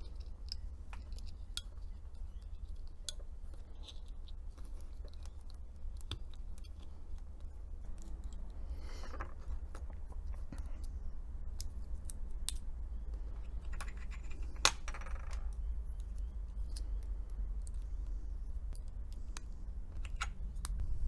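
Small metallic clicks and light scrapes from handling the watch's coin-cell battery and back parts during reassembly, with one sharper click about two-thirds of the way through, over a steady low hum.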